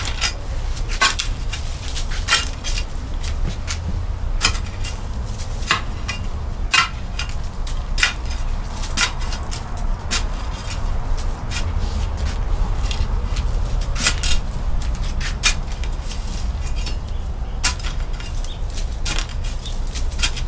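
A hand digging tool striking and scraping into dirt and tree roots while a drainage trench is cleared. The sharp chops come irregularly, about one every second or two, over a low rumble.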